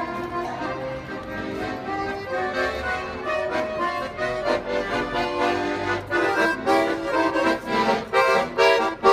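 Accordion music playing, a melody of sustained notes that grows more rhythmic and pulsing in its second half.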